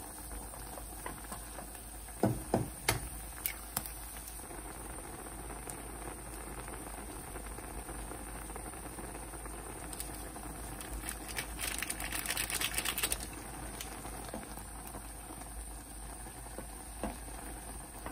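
Instant ramen noodles boiling in a stainless steel saucepan, with wooden chopsticks clicking against the pot as they stir the noodles. A few sharp clicks come about two to three seconds in, and a fast run of clicking lasting about a second and a half comes near twelve seconds in.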